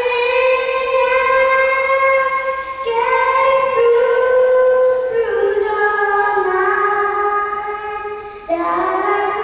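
A young girl singing the national anthem solo into a microphone, in long held notes, with a short break for breath about eight and a half seconds in.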